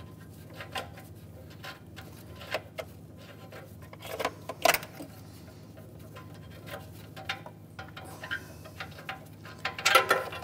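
Scattered small clicks and knocks of a gloved hand unthreading a loosened downstream oxygen sensor from the exhaust pipe, with the loudest knocks about four and a half seconds in and near the end.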